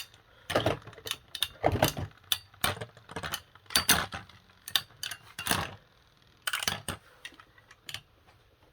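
Irregular clattering and knocking of hard plastic as a Beyblade stadium is swapped and its parts handled, about a dozen knocks at uneven intervals, thinning out in the last couple of seconds.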